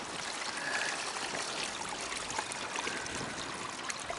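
Steady hiss of fizzing, bubbling water with many small crackles, from the thick foam on the water in a fish bag holding freshly caught fish.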